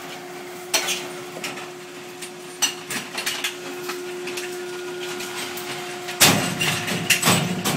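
Trash compactor running with a steady hum, a few sharp clicks over it. About six seconds in, a run of loud knocks and clattering begins.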